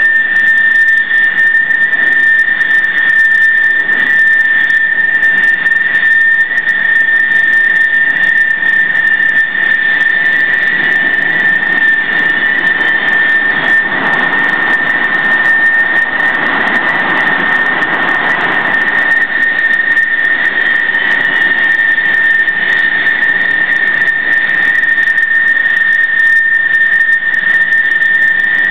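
F/A-18 Hornet jet engines running at high power on a carrier catapult: a loud, steady high-pitched whine over a rushing hiss. About 14 seconds in, a catapult launch brings a louder jet rush that swells for a few seconds, then fades back to the whine.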